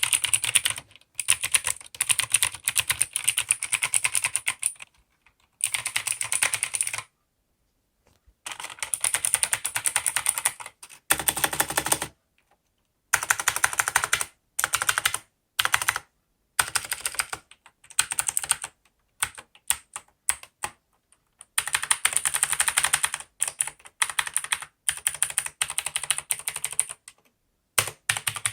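Maxtill TRON G100K mechanical keyboard with clicky blue switches being typed on fast. The clicks come in runs of a second or a few seconds, with short pauses between them.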